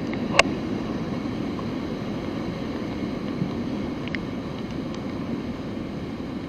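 Steady rushing outdoor noise with a single sharp click about half a second in.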